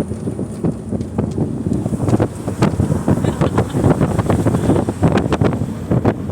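Strong wind buffeting the microphone in irregular gusts, over the low rumble of a moving vehicle.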